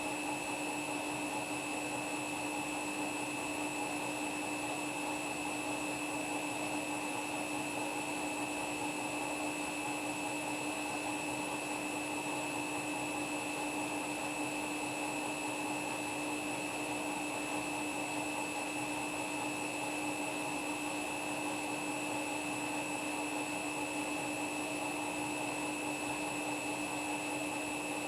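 Washing machine on a spin cycle, drum spinning at a steady speed with a constant motor whine and rushing noise.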